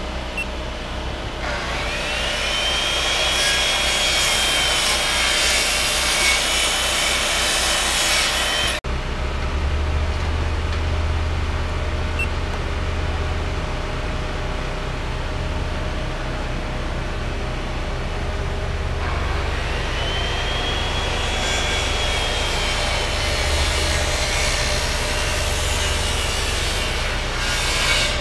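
A power saw cutting, twice: each run starts with a rising whine that then holds and wavers under the noise of the cut, one from about 2 to 9 seconds in and another from about 19 seconds in to near the end. A low steady hum runs underneath in the second half.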